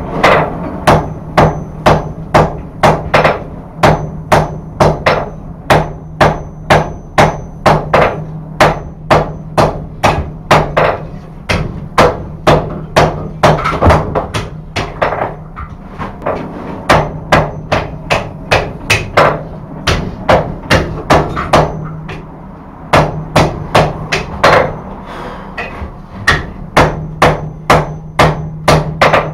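Hand hammer blows on a hot billet lying on an anvil, at about two to three blows a second with a couple of short breaks: forge-welding a section of wrought iron onto a high-carbon steel billet. A steady low hum runs underneath.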